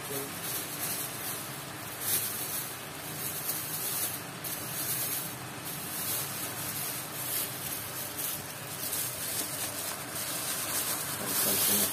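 Chilli, shallot and herb paste frying in oil in a wok, a steady sizzle. Near the end raw pork belly pieces are dropped in and the sizzle grows louder.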